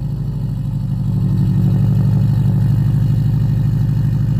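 2003 Subaru WRX's turbocharged flat-four idling through a 4-inch axle-back exhaust, a loud steady low rumble that rises slightly in level over the first second or so.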